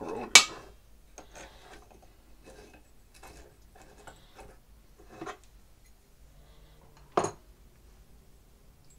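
Metal clinks and clanks of a wrench and small air fittings being handled while a fitting is unscrewed from a pancake air compressor. There is a sharp clank just after the start, two more about five and seven seconds in, and light tapping in between.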